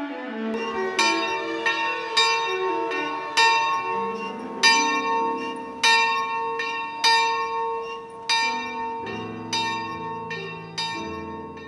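Church bells ringing, a steady run of strikes about every half second to second, each ringing on into the next.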